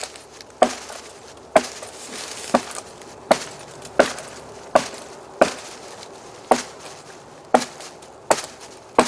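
Blade chopping into a dead branch: about ten sharp strikes, roughly one a second, cutting a piece off its end.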